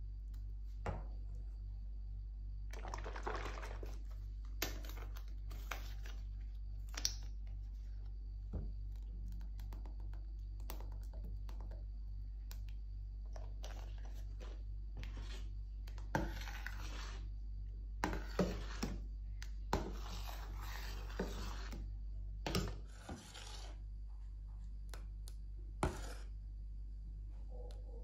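Household handling noises: scattered light clicks and knocks, and several rubbing and scraping passes of a second or two each, over a steady low hum.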